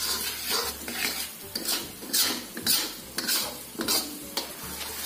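Metal spatula scraping and stirring a thick chili paste around a steel wok, about two strokes a second, over a soft sizzle of the paste frying in oil. The oil is separating out of the paste, the sign that the spice paste is nearly cooked.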